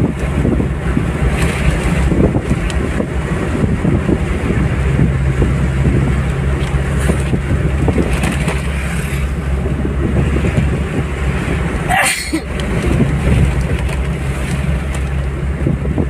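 Steady engine and tyre noise of a car driving along a highway at speed, with some wind. About twelve seconds in there is one brief, sharp, sweeping sound.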